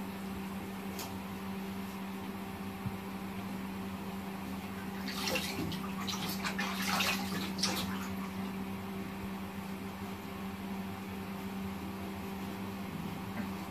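Water splashing in a plastic baby bathtub as a newborn is washed by hand, a run of splashes in the middle over a steady low hum.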